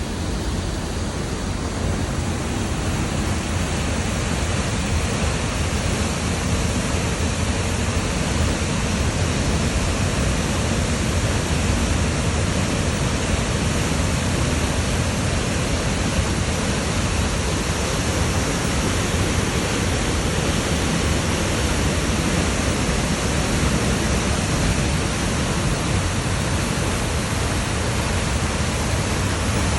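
Waterfall pouring steadily: a constant, even rush of falling water that holds unchanged throughout.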